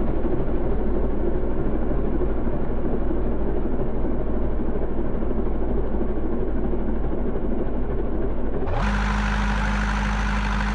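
Farm tractor engine running steadily under load as it tows a spiked-wheel crust breaker over dry, cloddy soil. About nine seconds in, the sound switches abruptly to a steadier, clearer hum.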